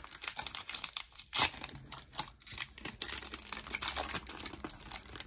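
Foil wrapper of a Pokémon Chilling Reign booster pack crinkling and tearing as it is pulled open by hand: a steady run of sharp crackles, with one louder crackle about a second and a half in.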